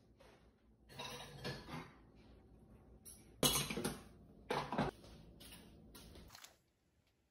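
Cutlery clinking and dishes clattering on a table during a meal, in a few short bursts, the loudest about three and a half seconds in.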